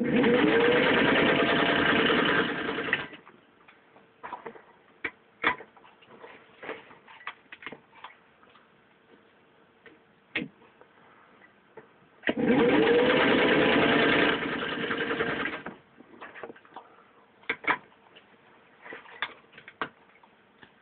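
Singer 15-91 sewing machine's gear-driven potted motor running in two bursts of about three seconds each, at the start and about halfway through, picking up speed at the start of each as it stitches through four layers of vinyl upholstery. Scattered clicks and knocks come between the bursts.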